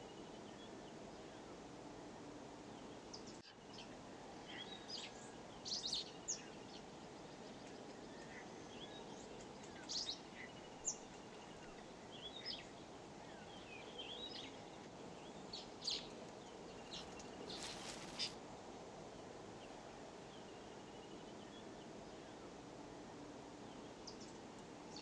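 Birds chirping: scattered short calls and whistles, several at a time, over a steady low background noise. About eighteen seconds in there is a brief hiss.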